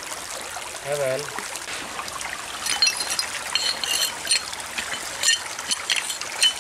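Small stream trickling steadily, with a quick run of small clicks and scrapes starting a little under three seconds in as shells and stones are handled and scraped over.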